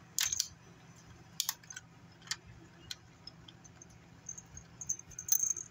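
A 1999 Furby's motor and gearbox clicking a few times at uneven intervals as it struggles to turn, a weird sound that the owner puts down to the mechanism not being lubricated. Small collar bells jingle faintly near the end.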